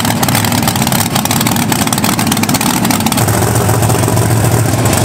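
Monster truck engines running loud and rough while the trucks drive across dirt, settling into a steadier low drone about three seconds in.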